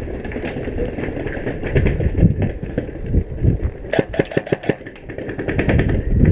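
Airsoft gun firing a quick burst of six or seven shots about four seconds in, over a steady low rumble.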